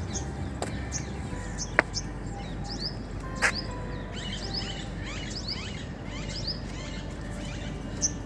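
Small birds chirping in dense bushes and trees, many short downward-sweeping calls that grow busier in the second half, with a couple of sharp clicks about two and three and a half seconds in.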